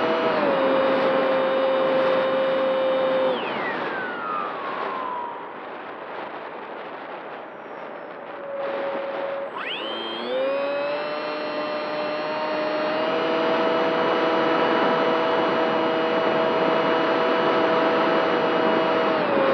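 RC model airplane's motor and propeller heard from the plane itself, with air rushing past. About three seconds in the whine drops in pitch as the throttle is cut, leaving mostly wind noise while it glides. Near the halfway point it rises sharply as the throttle opens again, then holds steady with a slight step up a few seconds later.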